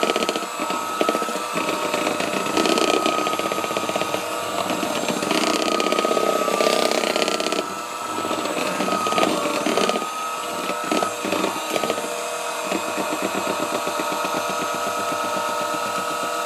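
Electric mixer running, beating chocolate cake batter: a steady whine over an uneven churning noise.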